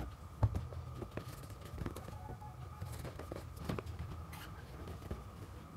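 A cardboard smartphone box being cut open and handled: a sharp knock at the start, another about half a second in, then scattered light clicks, taps and scrapes as the seal is cut with a small cutter and the box is picked up.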